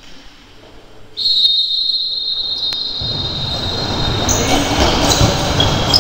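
A referee's whistle blown in one long, steady blast starting about a second in, followed from about three seconds in by louder general noise from the court.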